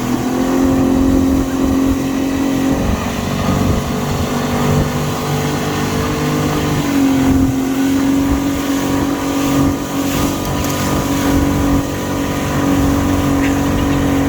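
An engine or motor running steadily with a droning hum. Its pitch steps down slightly about three seconds in and rises again about seven seconds in.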